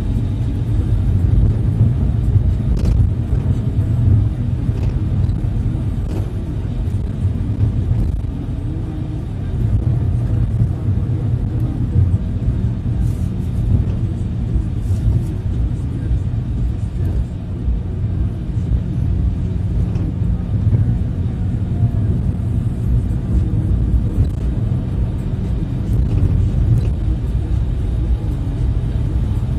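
Steady low rumble of a minibus's engine and tyres on the road, heard from inside the cabin while driving.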